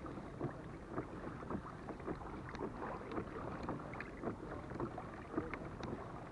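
Alboran FX kayak being pedalled along on calm water: soft, faint knocks and splashes from the pedal drive and hull, about two a second.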